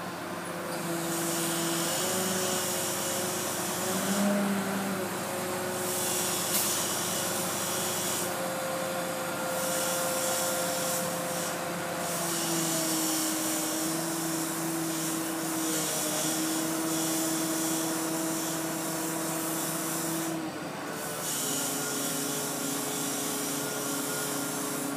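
Crane engine and hydraulics running steadily while a heavy steel counterweight is lowered onto a pile driver. A droning tone steps in pitch a few times, and a hiss above it cuts in and out.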